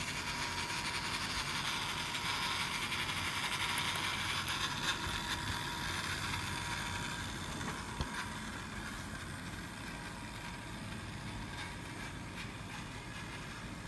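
Scale-model Crusader tank on Friulmodel metal tracks driving along, its small electric drive motor running with a thin steady whine under the clatter of the metal track links.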